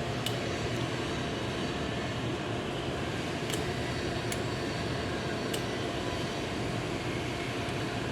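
Steady mechanical background hum and hiss, with a few faint, irregularly spaced clicks.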